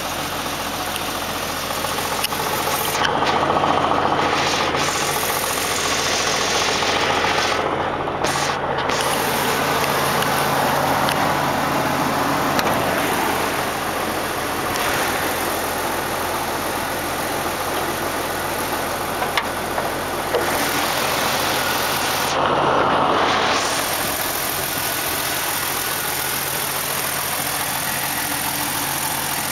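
Jeep Cherokee XJ engine idling steadily with an intermittent knocking noise, which the owner suspects is rod knock.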